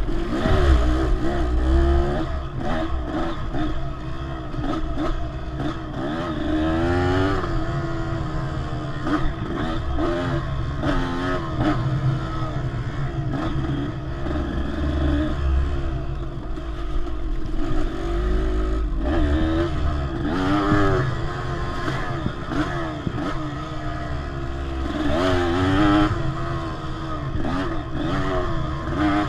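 Dirt bike engine running under load on a narrow dirt trail, revving up and down repeatedly as the rider works the throttle through the turns.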